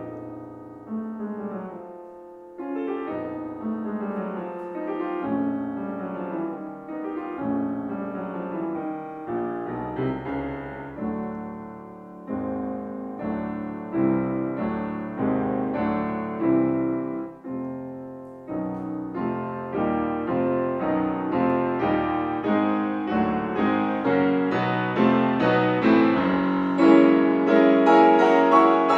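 Grand piano played solo: a classical piece of melody and chords, growing louder and fuller near the end.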